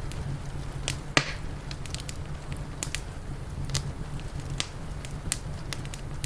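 Wood fire crackling: irregular sharp pops and snaps, one louder pop about a second in, over a steady low rumble.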